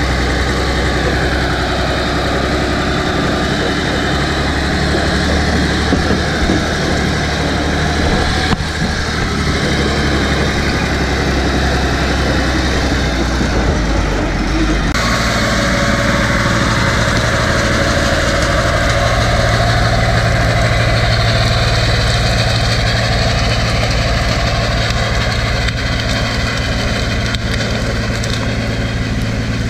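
Praga V3S truck's air-cooled Tatra 912 inline-six diesel running continuously and loudly while towing a trailer. The sound changes abruptly about halfway through and becomes steadier.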